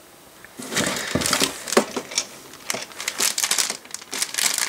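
Thin plastic LEGO polybag crinkling in the hands as it is picked up and turned over, irregular crackles starting about half a second in.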